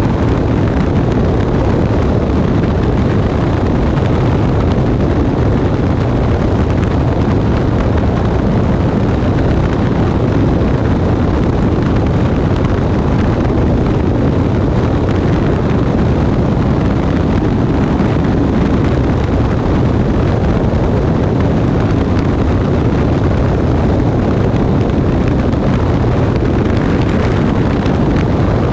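Light airplane in flight after takeoff: steady engine and propeller drone mixed with heavy wind rush on a microphone mounted under the aircraft.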